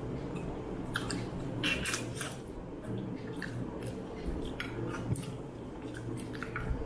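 Close-up eating sounds: fingers squishing rice and mutton curry together on the plate, with chewing and scattered small wet clicks and smacks.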